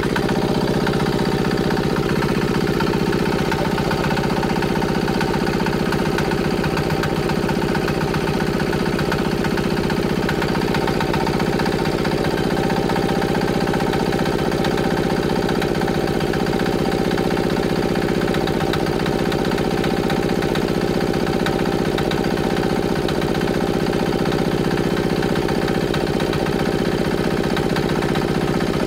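196cc single-cylinder, air-cooled four-stroke diesel engine running steadily on waste motor oil, with an even, rapid firing beat.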